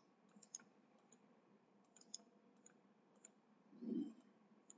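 Faint computer mouse clicks, several of them scattered irregularly, with a brief low-pitched sound about four seconds in.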